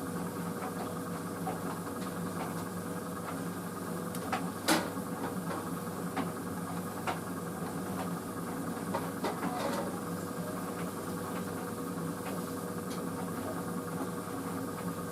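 White Knight CL43 tumble dryer running on a high-heat dry: a steady motor hum with a held tone, the drum turning its load over, with scattered light clicks and one sharper tap about four and a half seconds in.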